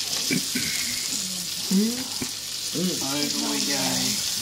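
Coated fish fillets frying in butter and oil in a frying pan, a steady sizzle.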